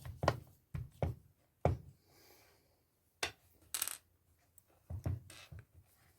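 Irregular clicks, taps and knocks of small hard plastic and metal parts being handled and pressed into place while a jigsaw's housing is reassembled, with one sharper rattle a little before four seconds in.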